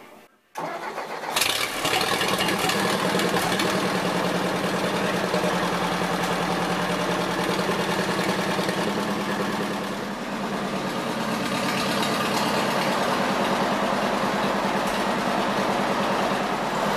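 1955 Ford 800 tractor's 172 cu in four-cylinder overhead-valve gasoline engine comes in about half a second in and then runs steadily, with a brief dip in level about ten seconds in. It is running on freshly installed points gapped at 25 thousandths and a new condenser, the cure for the defective points that kept it from firing.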